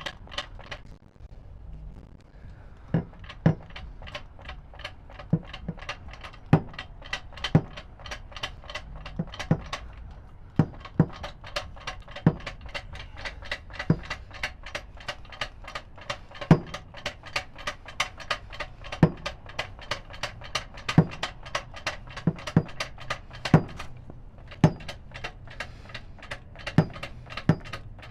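2-ton aluminum floor jack being pumped by hand through its busted handle: a steady series of metallic clicks and knocks, about three a second, with a louder knock roughly every second and a short lull about a second in.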